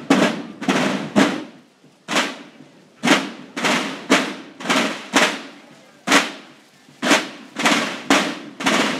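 A drum beaten in a steady rhythm of about two strokes a second, with a beat skipped here and there; each stroke is sharp and loud and rings out briefly before the next.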